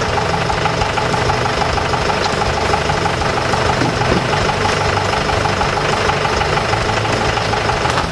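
Compact farm tractor's diesel engine idling steadily, with an even, fast clatter.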